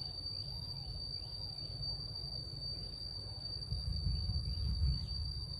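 Steady high-pitched insect trill, like a cricket, over a low rumble that grows louder about four seconds in.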